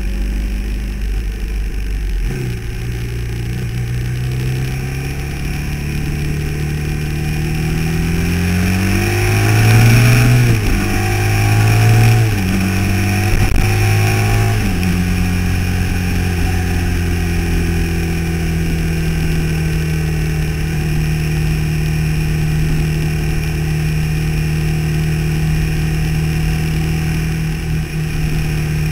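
Vehicle engine under way on the road. Its pitch climbs and drops several times, as with gear changes, through the first half, then holds steady at a cruise.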